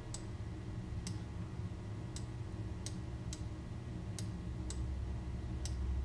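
Computer mouse clicking: about eight sharp, light clicks at uneven intervals, over a steady low hum.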